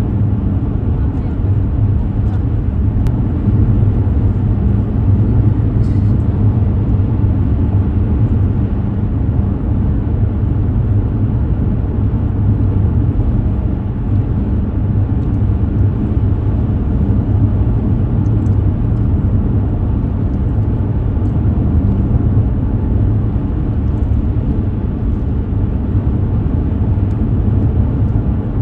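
Steady low rumble of road and engine noise inside a car's cabin while driving along a highway.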